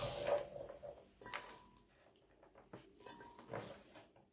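Chef's knife scraping chopped onion across a wooden cutting board and the pieces dropping into an enamel pot: a few faint, scattered scrapes and soft taps.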